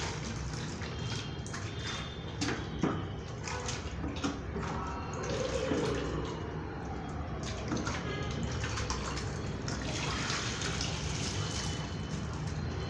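Water sloshing, gurgling and dripping as a hollow paper conch shell is pushed under water in a plastic tub and lifted out to drain, with a few light knocks against the tub.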